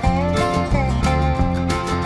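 Background instrumental music with a steady beat and a sliding melody line.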